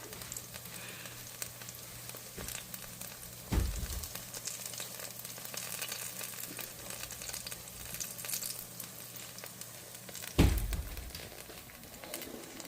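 Turon, banana and jackfruit rolls in spring-roll wrappers, frying in hot oil with a steady sizzle. Two dull thumps break in, about three and a half seconds in and near the ten-second mark, the second the louder.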